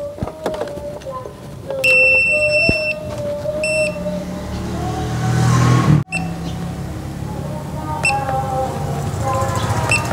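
Handheld digital car battery tester beeping while it tests the battery: one high beep of about a second, about two seconds in, then short beeps. Under them are faint background voices.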